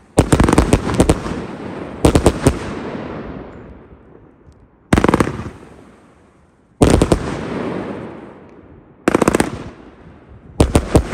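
Black Boxx Erzengel Diavolo firework compound firing fan volleys of comets: six salvos of rapid launch shots, about two seconds apart, each dying away after the burst.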